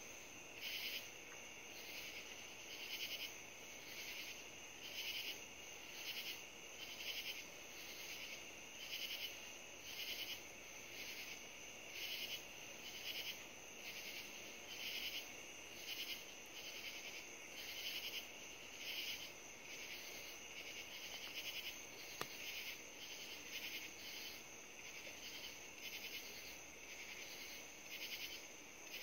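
Night insects calling in chorus: a rhythmic rasping chorus that swells about once a second over a steady high trill.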